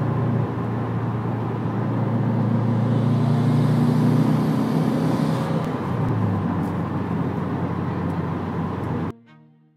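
2011 Subaru WRX's turbocharged flat-four engine and intake heard from inside the cabin while driving. Its pitch climbs slightly as it pulls, drops about six seconds in, and the sound cuts off sharply near the end.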